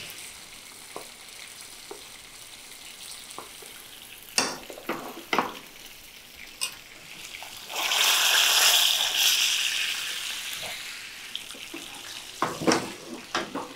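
Salmon fillets shallow-frying in olive oil, sizzling steadily, growing louder for about two seconds roughly eight seconds in. A spoon clicks and knocks against a pan of piperade a few times, about four to five seconds in and again near the end.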